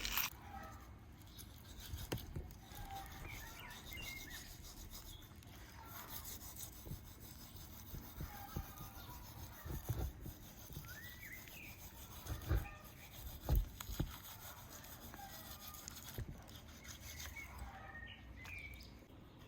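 Faint knife work on raw beef ribs, cutting and scraping away sinew, with a few soft knocks on the board. Birds chirp in the background.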